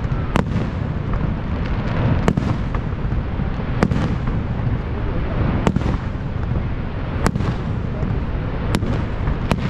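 Fireworks shells bursting in the sky: about seven sharp bangs at irregular gaps of one to two seconds, over a steady low rushing background.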